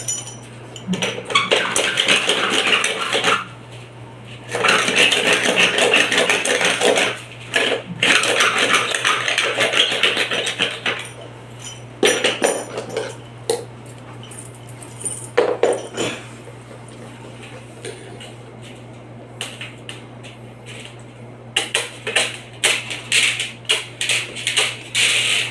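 Light metal clattering and clinking in several long runs, with scattered single clicks in between and a quicker run of clicks near the end.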